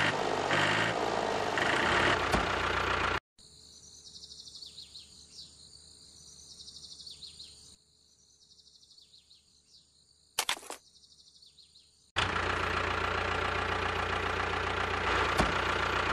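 A loud steady running noise cuts off abruptly about three seconds in. Quiet bird chirps follow, with one sharp knock about ten seconds in. About twelve seconds in, a steady engine-like running sound starts abruptly as the miniature model tractor pulls its trailer away.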